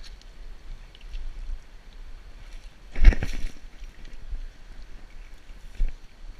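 Low rumble of wind and movement on a body-worn action camera's microphone as the wearer walks through grass, with one loud rustling knock about three seconds in.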